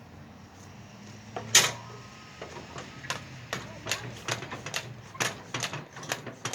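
One loud sharp click, then a run of sharp clicks or taps, about two or three a second, over a low steady hum.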